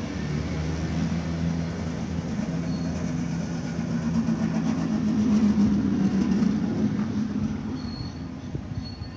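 Push-pull passenger train of Intercity-style coaches rolling slowly past along the platform as it pulls in: a low rumble of wheels and running gear, loudest about halfway through, then easing as it brakes. Brief faint brake squeals near the end.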